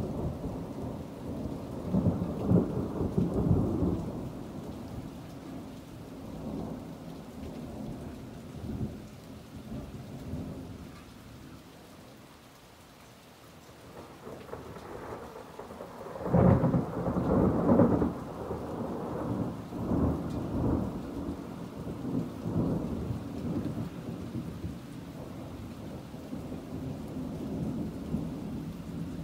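Thunder rumbling in long rolls over steady rain. One roll comes near the start and fades through a quieter stretch; a louder roll breaks in suddenly a little past halfway and rumbles on for several seconds before dying away.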